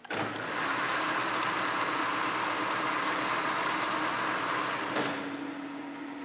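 Boye & Emmes 16-inch engine lathe with a 5 HP motor started up: the geared headstock comes on suddenly and runs with a steady mechanical noise while the chuck spins. About five seconds in the noise drops away, leaving a steady motor hum, as the spindle is taken out of drive with the headstock lever. A click comes near the end.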